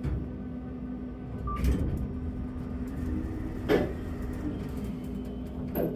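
Inside a KONE machine-room-less traction elevator car: a steady hum with a constant tone, a short high beep about a second and a half in, and a few sharp clunks from the car and door equipment. The loudest clunk comes about two-thirds of the way through.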